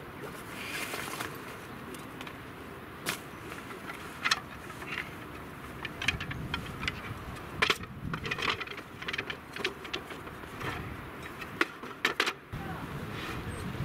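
Wooden clicks and knocks of a folding wooden camp table being put together: the hinged frame opened and the slatted wooden top set down on it, in separate sharp knocks a second or so apart. Near the end a steady low hum comes in.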